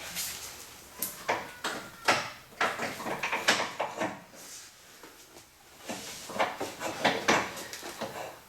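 Irregular scraping, knocking and rattling of a steel parking brake cable and its fittings being worked loose and pulled out through the truck's frame and hangers.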